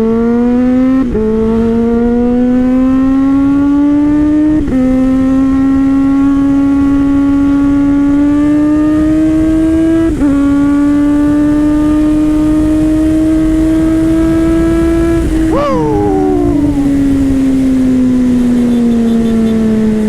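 Kawasaki Z H2's supercharged inline-four through an Orion aftermarket exhaust, accelerating hard through the gears. The engine note climbs, drops abruptly at each of three upshifts and climbs again. About fifteen seconds in the throttle closes and the note falls steadily as the bike slows.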